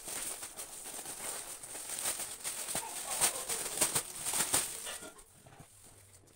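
Rustling and crinkling of a plastic-covered pencil case being handled, with many small crackles, dying away after about five seconds.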